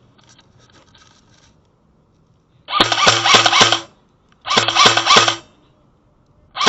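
Airsoft electric gun firing in bursts: a motor-driven whine with rapid mechanical cycling. There are two bursts of about a second each, and a third begins near the end.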